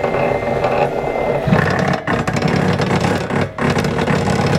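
Electric wire stripping machine running as a stiff, heavy cable is fed through its feed rollers and slitting blade. The running grows heavier about one and a half seconds in as the machine works under the load of the tougher cable, with brief dips about two and three and a half seconds in.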